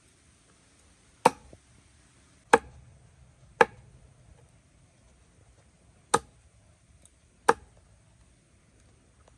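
Meat cleaver chopping raw chicken on a wooden cutting board: five sharp chops, irregularly spaced, with a pause of about two and a half seconds after the third.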